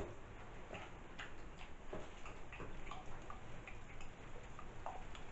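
Irregular light clicks and ticks, a couple a second, over a faint low hum.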